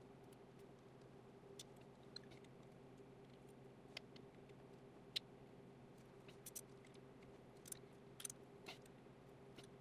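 Faint, scattered metal clicks and taps of a wrench, screwdriver and feeler gauge on a Triumph TR4's rocker-arm adjusting screw while valve clearance is set. A faint low steady hum runs underneath.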